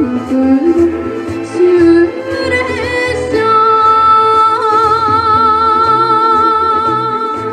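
A young girl singing a Japanese enka song into a microphone over a recorded instrumental backing track. About halfway through she holds one long note with vibrato.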